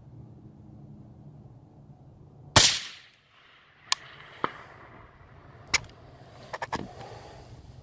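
A single suppressed rifle shot from a 6.5 Creedmoor AR-10 fitted with a Dead Air Sandman-L silencer, about two and a half seconds in, with a short echoing tail. Several fainter sharp clicks and knocks follow over the next few seconds.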